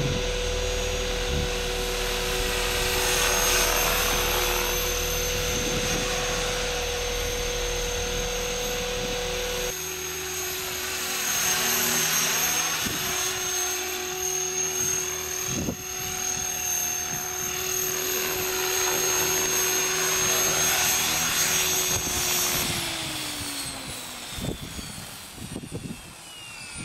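Radio-controlled model aircraft motors and rotors whining steadily. After a change about ten seconds in, a model helicopter is heard flying; near the end its motor and rotor wind down, the whine falling in pitch and fading.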